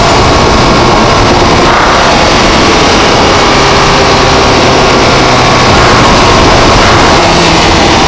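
Volkswagen GTI's turbocharged 2.0-litre four-cylinder under way, heard through an APR Carbonio intake: a loud engine and intake sound with turbo whistle, its pitch rising about two seconds in and again near the end as the car accelerates.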